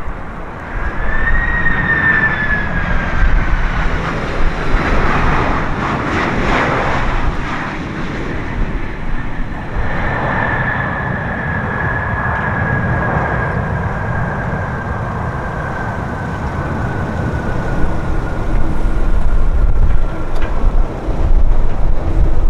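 Boeing 767-300ER's turbofan engines whining over a low rumble as the jet lands and rolls out. The high whine rises and then falls in pitch at first, grows noisier a few seconds in, and later holds as a long whine that sinks slowly as the engines wind down, with wind buffeting the microphone near the end.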